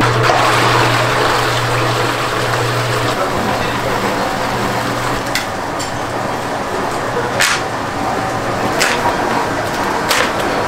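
Steady rushing kitchen noise with a low hum that fades out after the first few seconds. In the second half come a few short, sharp crackles and taps as foil-wrapped cream cheese blocks are handled and unpacked from their cardboard cases.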